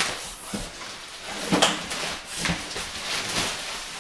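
Large cardboard shipping box being handled: flaps rustling and scraping, with several knocks spaced about a second apart.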